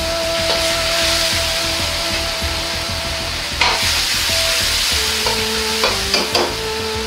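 Tomato sauce with eggplant sizzling and frying in a carbon-steel wok on a gas wok burner, with a metal ladle stirring and scraping through it. There is a sharp clatter about three and a half seconds in, and a few quick knocks of the ladle against the wok near the end.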